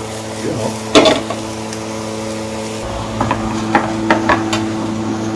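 Kitchen clatter: metal utensils knocking and clinking against cookware, one sharp knock about a second in and a run of clicks later, over a steady machine hum.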